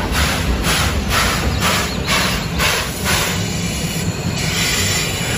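Steam locomotive (a JNR C11 tank engine dressed as Thomas the Tank Engine) chuffing at about two exhaust beats a second, the beats giving way after about three seconds to a steady hiss.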